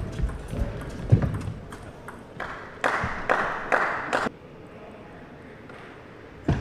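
Table tennis ball knocking off rackets and the table, with players' shoes thumping on the court as a rally ends. About three seconds in comes a noisy outburst lasting about a second and a half that cuts off suddenly, and near the end a single sharp racket strike on the serve.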